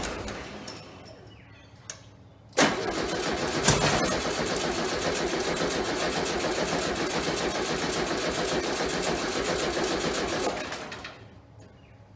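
VW Beetle's air-cooled flat-four engine firing on fuel poured into the carburettor: a run dies away at the start, then about two and a half seconds in it starts abruptly, runs for about eight seconds and fades out as the priming fuel is used up.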